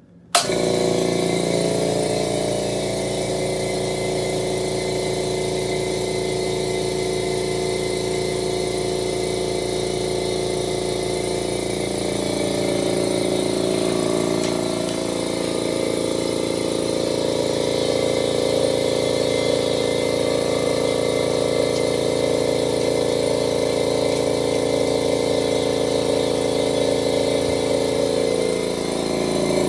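California Air Tools 8-gallon Ultra Quiet air compressor switching on about half a second in, its twin-cylinder pump then running steadily as it builds pressure in the tank.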